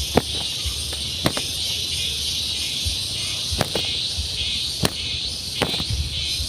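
Steady outdoor insect chorus, high and hissing, swelling and fading slowly, with five sharp clicks scattered through it and a low rumble underneath.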